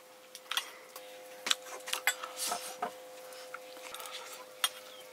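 Metal spoon clicking and scraping against a metal bowl while eating, a string of sharp irregular clinks over a faint steady hum.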